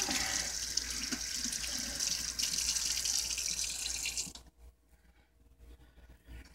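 Kitchen faucet running into a stainless steel sink as a frozen chicken wing is rinsed under the stream. The water stops suddenly a little over four seconds in.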